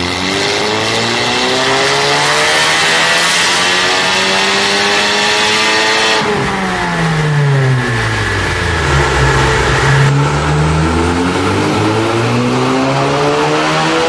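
Volkswagen Golf GTI Mk7's turbocharged four-cylinder engine, breathing through a catless downpipe and valved cat-back exhaust, pulling under acceleration. Its pitch rises steadily for about six seconds, falls for about three seconds, and from about ten seconds in rises again.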